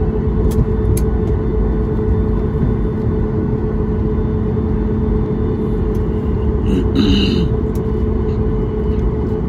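Cabin noise of an Akasa Air Boeing 737 MAX rolling down the runway after touchdown: a steady loud rumble from the engines and the wheels, with a steady hum through it. A brief higher-pitched sound comes about seven seconds in.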